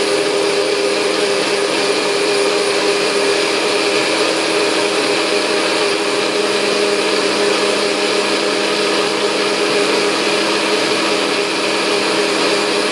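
NutriBullet personal blender running steadily, blending fruit, vegetables and liquid into a green juice.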